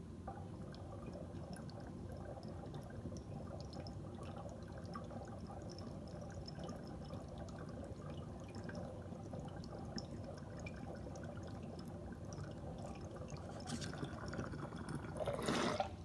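Water in a glass bubbler bubbling and gurgling through its slotted percolator as vapor is drawn through it in one long, steady inhale, a constant stream of small pops. It grows louder near the end, then stops.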